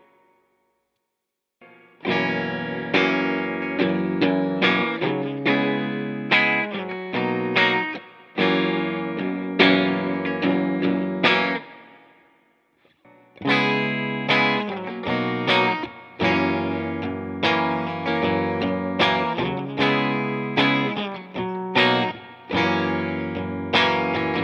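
Electric guitar played clean through a digital Vox AC30-style amp emulation with reverb: picked and strummed chords ringing out in two phrases, the first starting about two seconds in and stopping about twelve seconds in, the second starting a second later.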